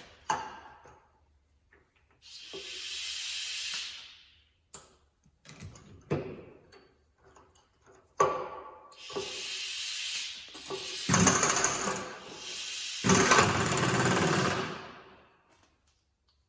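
Pneumatic power drawbar on a milling machine working the collet: bursts of rattling air-tool noise and hiss, with clicks between them, the longest and loudest bursts near the end.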